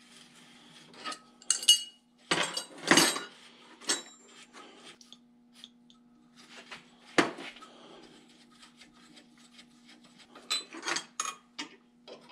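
Hand tools clinking and knocking against a steel brake rod held in a bench vise: irregular sharp metallic clinks, loudest a couple of seconds in and again about seven seconds in, with a few quicker clicks near the end and a steady low hum underneath.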